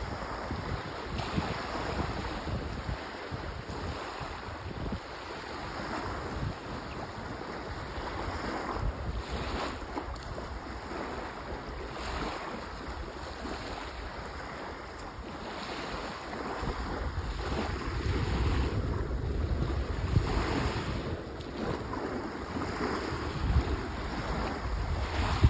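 Small sea waves lapping and washing up onto a sandy beach, with wind noise on the microphone that grows heavier about two-thirds of the way through.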